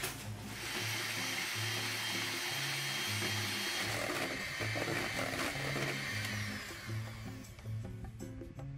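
Electric hand mixer running steadily, its wire beaters whipping fresh cream with sugar and rum in a stainless steel bowl until it is firm, a whirring motor with a thin high whine. It starts about a second in and fades out near the end, over background music.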